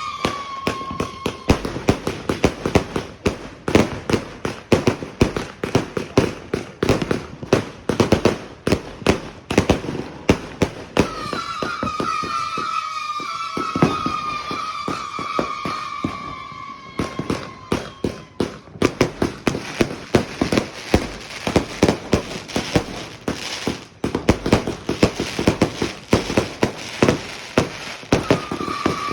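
A 260-shot consumer firework cake firing: a fast, continuous run of sharp bangs and crackles. Long, slowly falling whistling tones come in at the start, again in the middle and again near the end.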